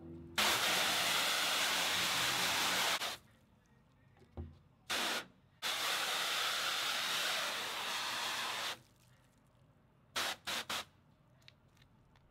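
Garden-hose spray nozzle squeezed on and off, its water jet hissing against the mesh of a silk-screen printing screen as the exposed stencil is washed out. Two long sprays of about three seconds each, with a short spurt between them and three quick spurts near the end.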